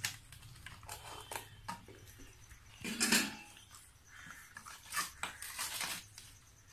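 Hands rubbing masala paste into whole fish in a stainless steel bowl, with irregular wet scrapes and clinks of the steel bowl; the loudest scrape comes about three seconds in.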